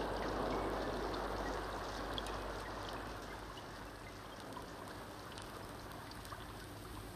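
A steady rushing, rain-like noise that fades gradually, with a few faint scattered ticks.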